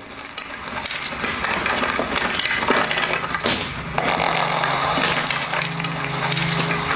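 Eerie stage soundtrack of dense crackling, crunching noise like things breaking, with a low steady drone joining about four seconds in.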